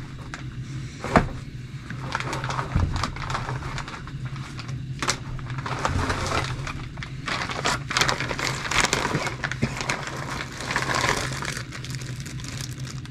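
Small plastic and metal parts of a radio-controlled truck being handled and fitted: irregular clicks, taps and rustling, with a sharp click about a second in, over a steady low hum.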